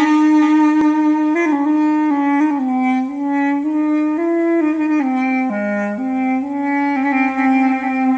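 Solo woodwind instrument playing a slow melody, one held note at a time.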